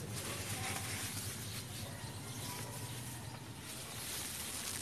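Steady outdoor background noise: a low hum under an even hiss, with no distinct event.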